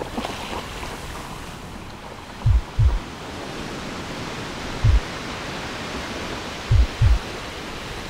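Recorded rainstorm soundscape: a steady hiss of rain with five short, deep thuds, two of them in pairs.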